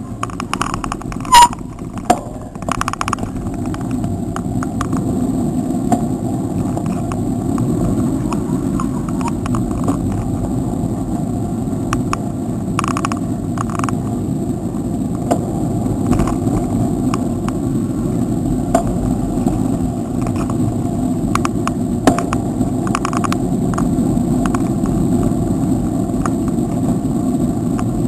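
Steady rumbling noise of riding a bicycle through streets, mostly wind on the microphone and rolling noise, with a short, sharp loud sound about a second and a half in.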